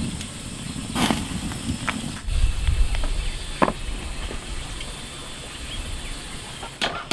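Low rumble and a few scattered knocks, then near the end sharp chops of a kitchen knife on a wooden cutting board begin.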